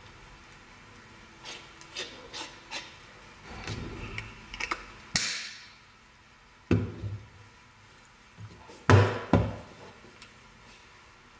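A stainless-steel and acrylic salt grinder being handled: a few light clicks as a part is fitted on its end, a short rush of coarse salt shifting inside the tube about five seconds in, then sharp knocks with a dull thump, the loudest about nine seconds in.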